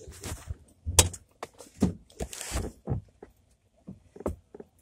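Irregular thumps, knocks and rustles of a phone being handled and jostled while someone climbs into a car, with a hard knock about a second in.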